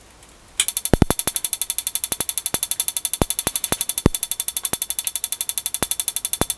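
High-voltage spark ignition firing the spark plug of a Hobbyking Red Head pulse jet engine. It starts about half a second in as a rapid, even ticking, well over ten sparks a second, with occasional louder snaps.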